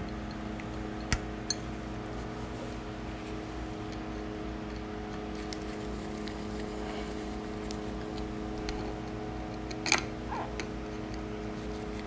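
Light metallic clicks of screws and the exhaust manifold being handled as it is fitted to a Maytag 72 twin-cylinder engine, two small clicks about a second in and a sharper clink near the end, over a steady background hum.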